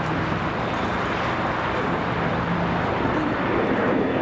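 Steady engine and traffic noise, growing slightly louder near the end.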